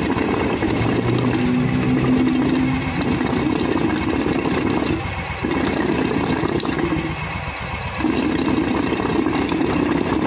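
Royal Enfield Thunderbird 350's single-cylinder four-stroke engine running at idle with a fast, even pulse. It drops off briefly twice, about five seconds in and again around seven seconds.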